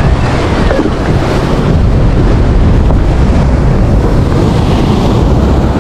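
Ocean surf breaking and washing up the beach, with strong wind buffeting the microphone in a loud, steady rumble.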